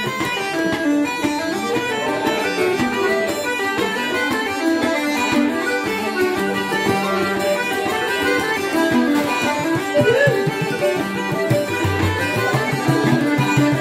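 Irish traditional session music: tenor banjo, button accordion, uilleann pipes and bouzouki playing a lively tune in unison, with a bodhrán beating time.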